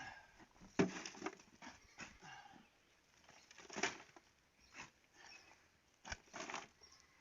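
A series of irregular scrapes and knocks, the loudest just under a second in.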